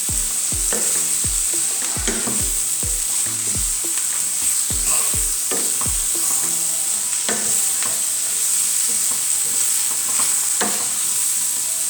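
Cabbage and mushrooms sizzling in olive oil in a hot, wide pan while a spoon stirs and turns them, scraping and knocking against the pan. The spoon strokes come about twice a second for the first six seconds, then grow sparser under the steady sizzle.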